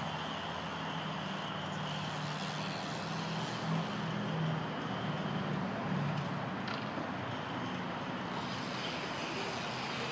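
Steady roar of highway traffic, with one vehicle's low engine drone swelling and fading in the middle.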